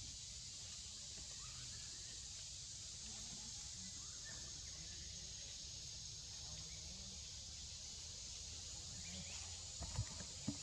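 Quiet outdoor forest ambience: a steady high hiss over a low rumble, with two short knocks a little before the end.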